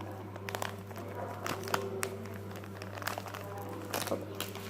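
Spoon working a sticky glue-and-contact-lens-solution slime mixture in a bowl: irregular small clicks, taps and sticky crackles, over a steady low hum.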